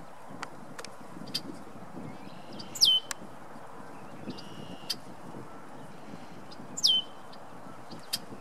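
Red-winged blackbirds calling: two loud whistles, about four seconds apart, each sweeping down in pitch, with short sharp call notes scattered between them.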